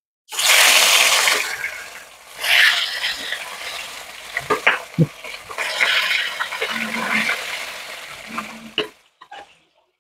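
Marinated fish pieces slid one at a time into hot oil in a kadai. Each sets off a loud sizzle that settles into steady frying, loudest as the first piece goes in. There are a few short metal clinks a little before halfway, and the sizzle stops shortly before the end.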